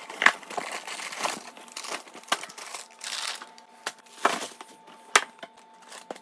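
Crinkly plastic snack packaging and bags being handled, in irregular rustles with a few sharper crackles.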